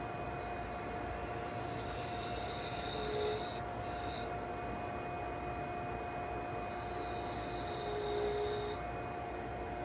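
Wood lathe running with a steady whine as a turning tool cuts a long, thin curly cherry spindle. The cut swells briefly twice, about three and eight seconds in.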